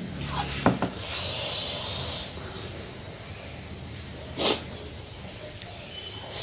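Fingers mixing rice and curry on a plate, with a few soft clicks and a short noisy burst about four and a half seconds in. A thin, high whistle-like tone sounds steadily for about two seconds near the start and is the loudest thing heard.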